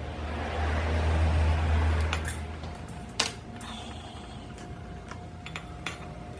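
Metalworking shop sounds: a low machine hum that swells and dies away over the first three seconds, then light metal clinks and taps, with one sharp click a little after three seconds in.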